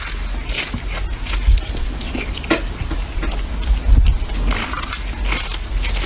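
A cat chewing and crunching on a whole small fish held in its paws, irregular wet crunches as it bites through flesh and bone, over a low steady hum.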